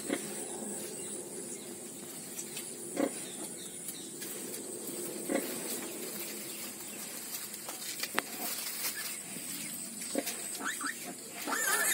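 Nursing piglets at a sow, giving short grunts and squeaks every few seconds over a steady background hiss, with a brief high squeal near the end.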